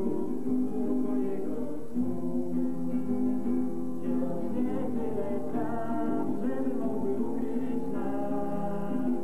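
Music: several voices singing together, with guitar accompaniment.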